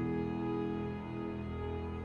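Soft, slow instrumental background music with held keyboard chords.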